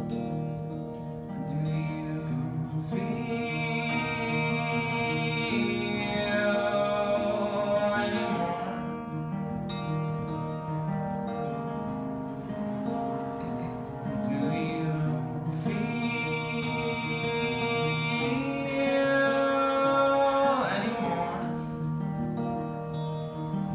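Acoustic guitar playing an instrumental passage of a folk song, with notes and chords ringing out and changing every second or two.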